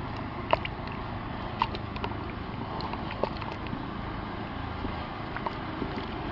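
Stick stirring thick, congealed cattle blood in a plastic tub: irregular sharp knocks and clicks of the stick against the tub, the loudest about half a second in and another a second later, over a steady low hum.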